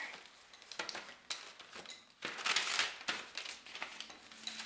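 Rustling and crinkling handling noise, with a couple of light knocks about a second in and louder bursts of rustling in the second half.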